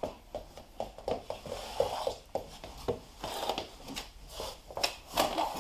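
Irregular light taps, knocks and creaky scrapes of a toddler's hands on a wicker chest.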